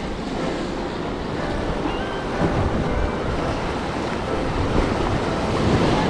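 Ocean surf breaking and washing over the boulders of a rock jetty, with wind buffeting the microphone. The wash swells louder near the end.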